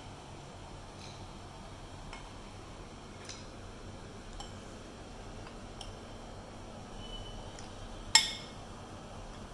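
A metal spoon scraping bhel out of a glass mixing bowl. Light clinks come about once a second, with one loud, ringing clink near the end.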